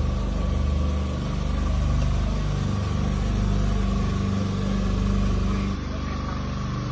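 An engine running steadily, its low pitch wavering slightly; the sound shifts abruptly about six seconds in.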